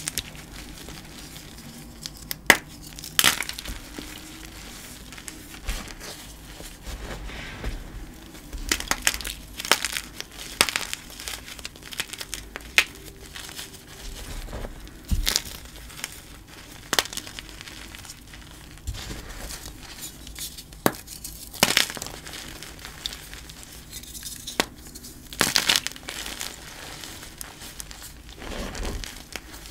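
Dyed gym chalk pieces and reformed chalk blocks being crushed by hand, with irregular crunches, sharp cracks and crumbling between the fingers.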